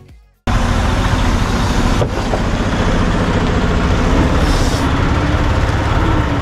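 Tractor-trailer's diesel engine running as the truck pulls past close by. It cuts in abruptly about half a second in, and a short hiss of air comes about four seconds in.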